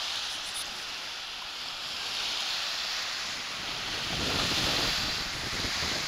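Small waves breaking and washing up a sandy shore, a steady rush of surf. Wind buffets the microphone with a low rumble from about four seconds in.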